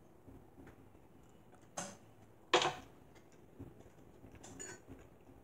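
Metal fork clinking on a ceramic dinner plate while eating: two sharp clinks a little under a second apart, about two seconds in, the second louder with a short ring, then a few lighter taps.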